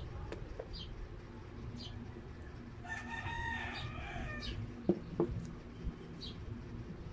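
A rooster crows once in the background, a long call of about a second and a half starting about three seconds in. Short, high bird chirps come now and then. Two sharp clicks just after the crow are the loudest sounds.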